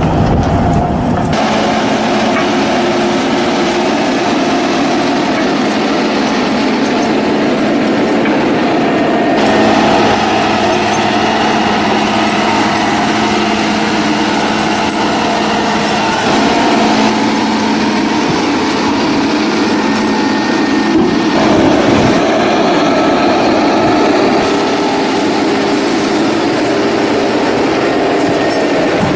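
Heavy tractor engine running steadily under load while pulling a spiked-wheel root-clearing implement through the soil. The sound shifts abruptly several times.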